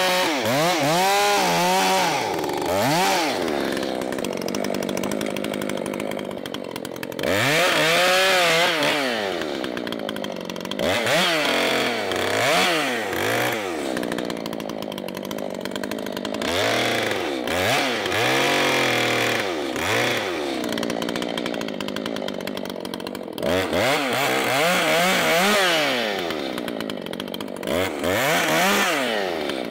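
Two-stroke chainsaw with a freshly sharpened chain being run in a test cut; the engine pitch rises and falls about half a dozen times as the throttle is opened and eased off.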